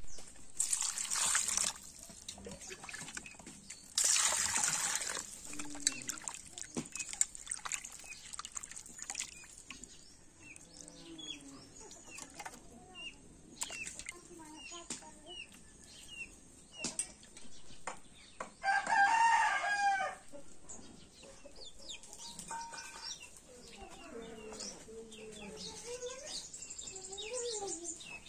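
Water splashing twice in a plastic bucket near the start as cut fish pieces are rinsed. Hens cluck throughout, and a rooster crows once, for about a second, about two-thirds of the way through.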